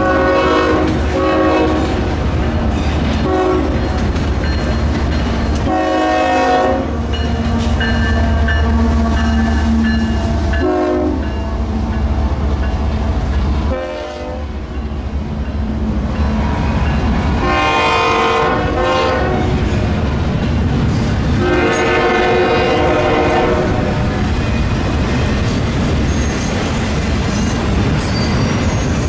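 A freight train rumbling past while a locomotive's multi-note air horn sounds several blasts, short ones early and two longer ones in the second half.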